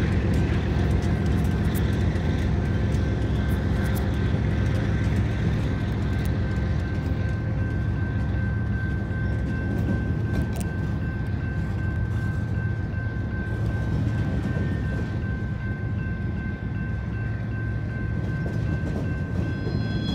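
BNSF freight train with GE ES44C4 diesel locomotives and well cars passing: a steady low rumble and engine drone, with a thin steady high tone above it and a few faint clicks.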